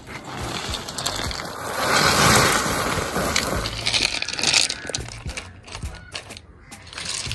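River stones grinding and clattering against one another as they are laid by hand: a long rough grinding stretch, then separate clacks in the second half.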